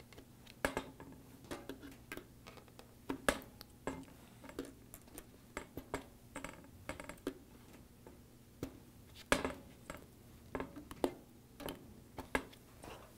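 Needle-nose pliers gripping and pulling airgun darts out of a dartboard: scattered light metallic clicks and taps, the sharpest about three seconds in and again about nine seconds in.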